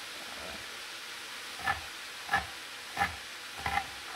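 Knife chopping green onions on a cutting board: about five sharp chops starting around a second and a half in, roughly one every two-thirds of a second. Under them, the steady sizzle of vegetables frying in a pan.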